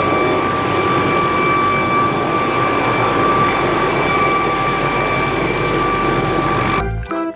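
Jet aircraft engine running: a loud, steady roar with a high whine held over it, cutting off abruptly near the end.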